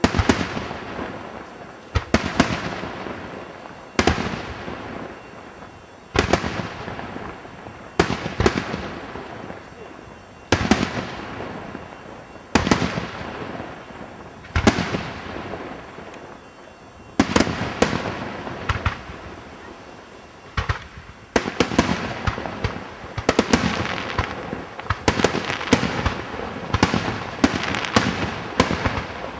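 Aerial firework shells bursting, each sharp bang trailing off as it fades, about one every two seconds. A little past halfway the bursts come quicker and overlap in a rapid volley.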